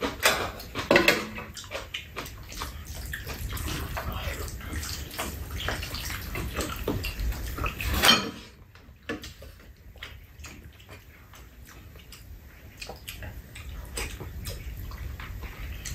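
Metal spoons clinking and scraping against ceramic bowls as two people eat. A low rumble under the clinks stops suddenly about halfway through, leaving only the scattered clinks.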